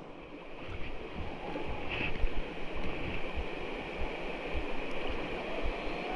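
Creek water rushing through a small rapid, a steady wash with irregular low thumps mixed in.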